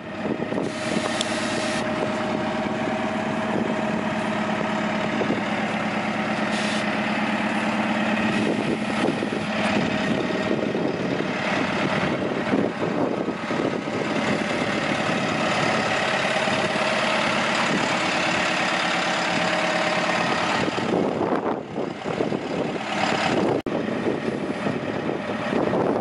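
Diesel engine of a DAF LF55 refrigerated truck running steadily at idle.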